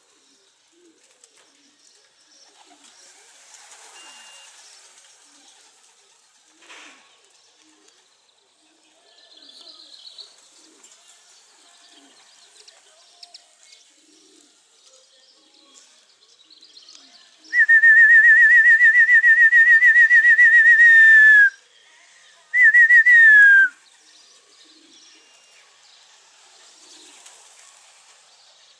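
A loud trilling whistle, held for about four seconds and then blown again briefly, each blast sliding down in pitch as it ends. Around it, faint twittering of small birds.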